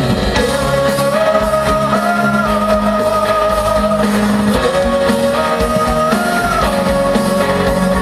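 Live pop-rock band music: a lead melody in long held notes that step up and down over a steady bass and guitar accompaniment, with no words.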